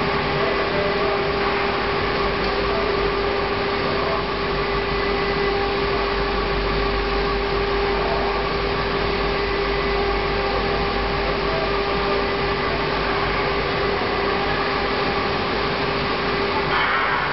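Two-spindle CNC wood router running, both spindles cutting into a wooden board together: a steady spindle whine over a constant cutting and machine noise.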